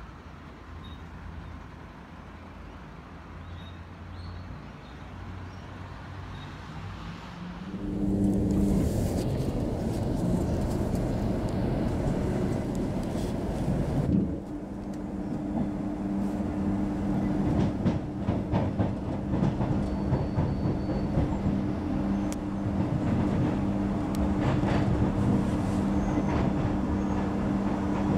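Riding inside a Queensland Rail electric suburban train: a steady running noise with two steady droning tones, and wheels clicking over the rails. The noise is quieter at first and gets much louder about eight seconds in.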